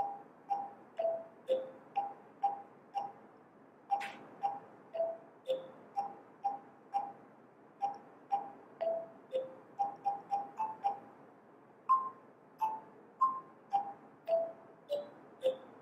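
Small handmade kalimba keyring, its metal tines plucked by thumbs one note at a time in a simple tune. The notes come about two a second, each ringing briefly and dying away, with a quicker run of notes a little past the middle.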